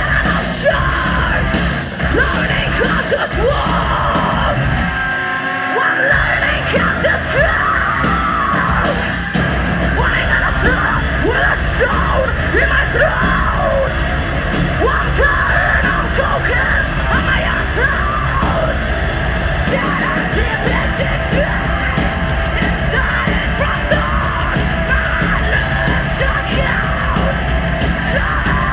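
Heavy metal band playing with distorted guitars, drums and harshly screamed vocals, with a short break about five seconds in before the band comes back in.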